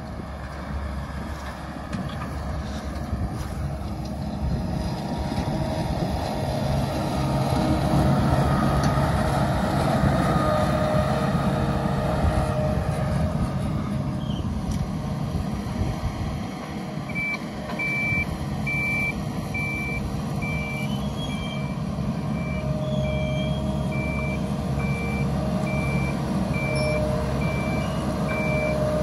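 Facma Semek 1000 self-propelled hazelnut harvester running, its engine and machinery loud and steady. From a bit over halfway in, a reversing alarm beeps steadily as the machine backs up to unload.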